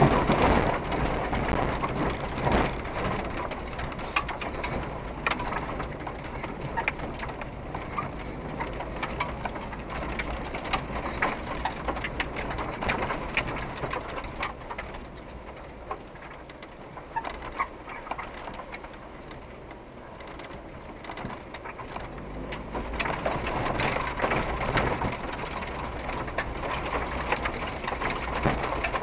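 Cabin sound of an SUV driving slowly over a rough dirt track: a steady low rumble of engine and tyres with a constant stream of small rattles and knocks. It is louder near the start and again over the last few seconds.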